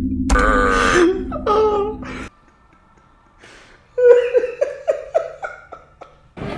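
A long, low, loud belch that breaks off suddenly about two seconds in, with laughter over it; after a brief silence, a burst of rhythmic laughter, about four pulses a second.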